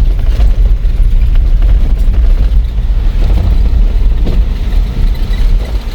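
Loud, steady low rumble of a vehicle on the move.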